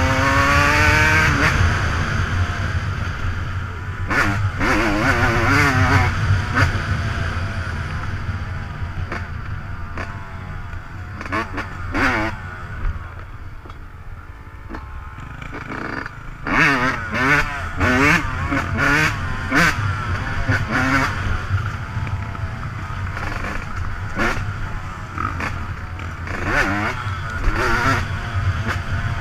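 Dirt bike engine revving up and down again and again while riding off-road, with scattered sharp knocks. It eases off in the middle and revs hard again about two-thirds of the way through.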